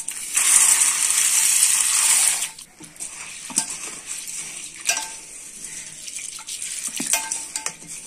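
Split chana and urad dal poured into a steel bowl of water, the grains pattering and splashing into it for the first two seconds or so. Then a hand swishes and rubs the lentils in the water to wash them, with quieter sloshing and light clicks of grains on the steel.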